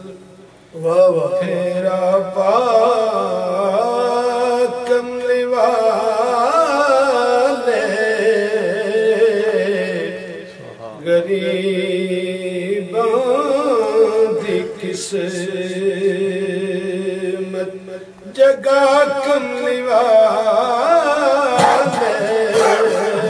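A man singing Sufi devotional verse in long, wavering held notes with quick ornaments, pausing briefly about ten and eighteen seconds in.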